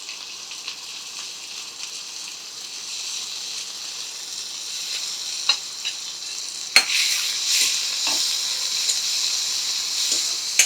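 A pounded mix of garlic, pepper, green chilli, curry leaves and karpuravalli (Mexican mint) leaves sizzling steadily in hot sesame oil in a kadai. A few sharp clicks of stirring are heard, the loudest about seven seconds in, after which the sizzle is a little louder.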